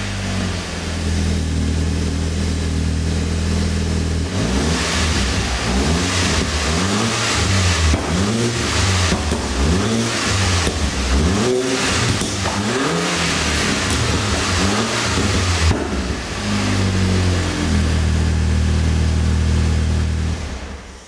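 VW Golf 5 GTI's 2.0 TFSI turbocharged four-cylinder engine, heard through a Milltek exhaust. It idles steadily for about four seconds, then is blipped about ten times in quick succession, the pitch rising and falling with each rev. It settles back to a steady idle for the last few seconds.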